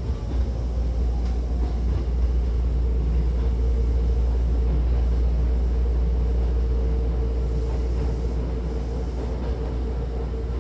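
Hankyu 1000-series electric commuter train running between stations, heard from inside the car: a steady low rumble with a constant hum over it.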